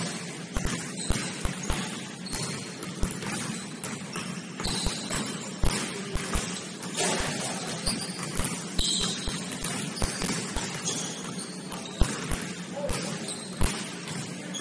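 A basketball bouncing on a gym floor in irregular thuds, several a second, with short high squeaks of sneakers on the hardwood.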